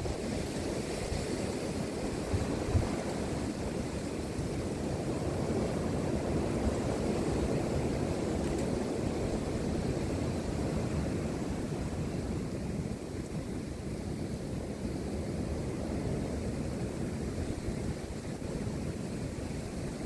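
Winter wind storm blowing hard and steadily in gusts, with wind noise on the microphone. It eases a little about two-thirds of the way through.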